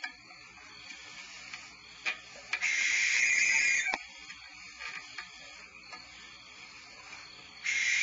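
Barn owl hissing call, a harsh rasping hiss a little over a second long, heard once about two and a half seconds in and again starting near the end, with a few faint clicks between.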